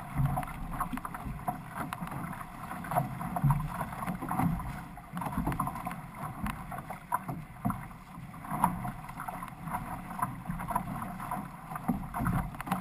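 Water rushing and splashing along the hull of a six-person outrigger canoe under paddle, with uneven splashes as the paddles dig in and pull through.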